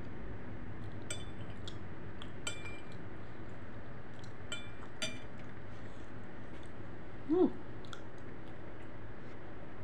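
Metal spoon clinking against a glass bowl a few times during the first five seconds while she eats, each clink ringing briefly, over a steady low hum. About seven seconds in comes a brief vocal sound, the loudest moment.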